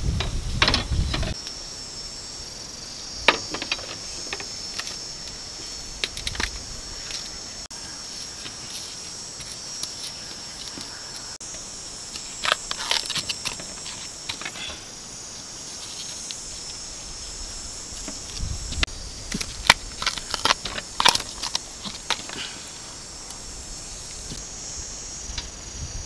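A machete chopping and trimming bamboo shoots on a split-bamboo table, with the husks being peeled: scattered sharp knocks and cuts, bunched together around the middle and again later. Underneath runs a steady high-pitched insect buzz.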